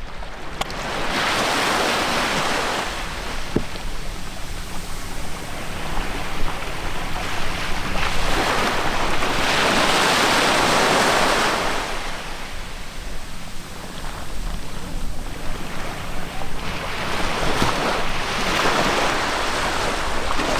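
Sea waves washing in and receding, swelling and fading in about four long surges, with wind on the microphone.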